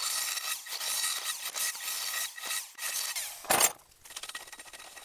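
A drill bit grinding through the stamped steel of a compact spare wheel, boring a new bolt hole, with brief dips in the noise. A single loud clank about three and a half seconds in, then a few light clicks.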